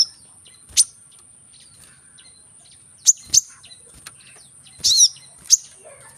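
Brown-throated sunbird (kolibri kelapa) calling: short, sharp, high chips at irregular intervals, with a longer warbled call about five seconds in. A faint, steady high-pitched hiss runs underneath.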